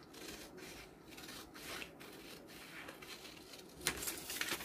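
Large tailoring scissors snipping through a paper sleeve pattern along its marked cutting line, a steady run of short snips about two to three a second, the loudest about four seconds in.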